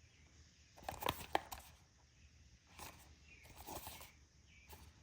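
Faint handling of a small cardboard product box: a few soft rustles and taps, clustered about a second in and again around three to four seconds in.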